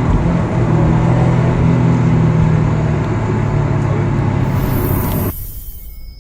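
2013 Subaru STI's turbocharged flat-four engine and exhaust running at a fairly steady pitch under load, sagging slightly before it cuts off abruptly about five seconds in.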